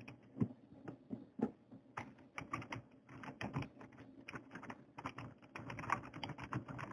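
Computer keyboard typing: scattered key clicks at first, then quick runs of keystrokes from about two seconds in.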